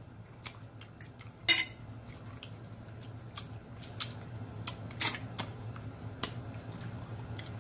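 Eating sounds of blue crab being picked apart by hand: a handful of scattered sharp clicks and cracks of shell, the loudest about a second and a half in, over a steady low hum.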